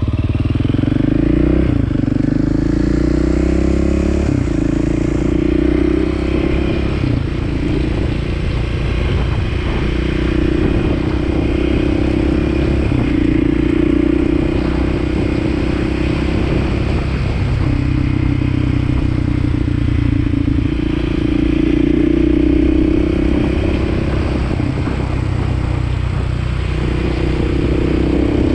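Motorcycle engine under way, rising in pitch through a few gear changes in the first seconds, then holding a steady cruise with small throttle changes. Wind buffets the microphone.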